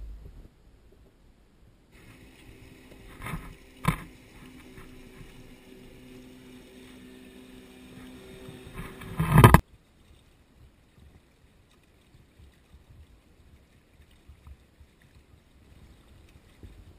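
Small outboard motorboat running steadily as it passes at water level, with water slapping against the microphone a couple of times. The sound swells, then cuts off abruptly about halfway through and gives way to faint, muffled underwater quiet.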